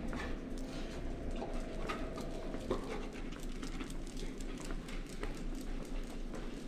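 Dog's claws clicking and pattering irregularly on a polished stone floor as it trots about, over a faint steady hum.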